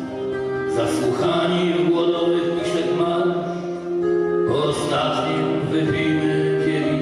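A man singing a song in held notes, accompanied by acoustic guitar and keyboard.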